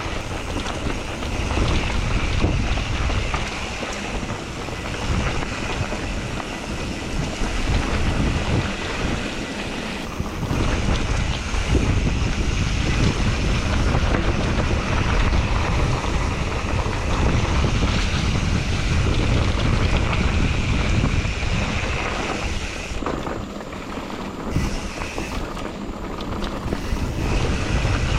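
A mountain bike being ridden along a dirt trail: wind rushing over the microphone with a steady low rumble from the ride, easing briefly now and then.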